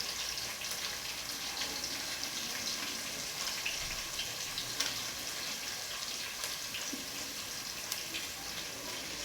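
Vegetable oil sizzling in a pot on the stove with spices just added: a steady hiss with scattered small crackles.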